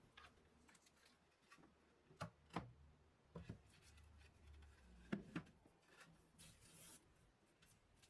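Faint handling sounds: about six light knocks or clicks in two clusters, with some quiet rubbing near the end.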